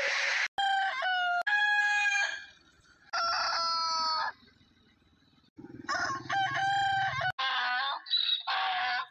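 Rooster crowing three times, each crow a long drawn-out call that cuts off sharply, with short quiet gaps between. Near the end a choppier run of short, high calls follows.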